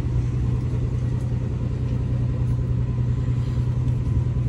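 Fishing boat's engine running steadily, a continuous low drone.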